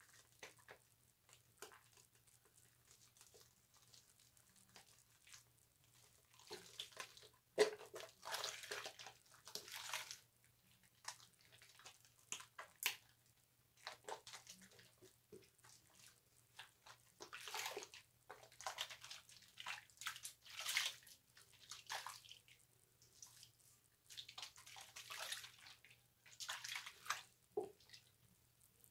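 Water splashing in irregular bursts, in clusters a few seconds long, as wet soap is lathered with a loofah. A faint steady low hum runs underneath.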